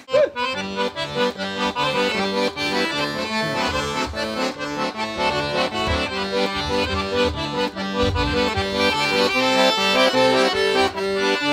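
Background accordion music playing a traditional-style tune, its notes and chords changing in a steady rhythm.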